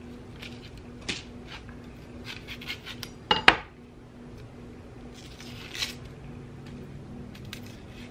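Kitchen clatter of a knife and dishes as cut onions are moved into the pot: a few scattered knocks, with one louder clunk about three and a half seconds in.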